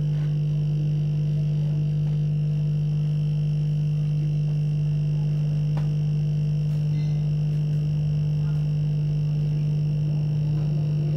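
Hot air rework blower running with a steady, constant hum and hiss while it heats a phone's charging connector to melt the solder and free it.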